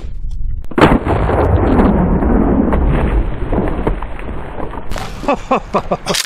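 A single 12-gauge pump-shotgun shot with a 3-inch magnum shell, about a second in, followed by a long rolling echo that dies away over about three seconds.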